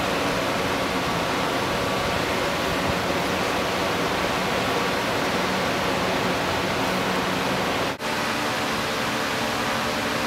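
Steady rushing noise with a faint low hum underneath. It drops out for an instant about eight seconds in.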